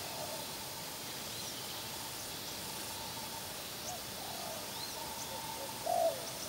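Spotted doves cooing: a few soft coos, the loudest about six seconds in, with faint high chirps of small birds behind them.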